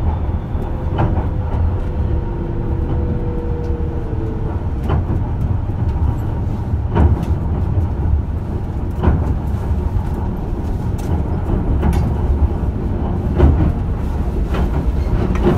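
Onboard running sound of a JR Shikoku 8000 series electric train with Toshiba GTO inverters: a steady low rumble with occasional sharp clacks from the wheels and track. A faint tone slides slightly lower during the first few seconds.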